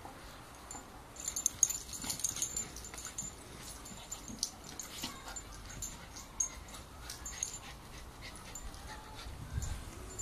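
Terriers making small dog sounds, mixed with a run of short clicks and rustles that starts about a second in.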